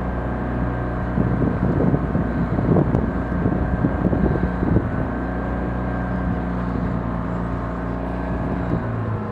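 Boat engine running steadily with an even hum, cutting off shortly before the end.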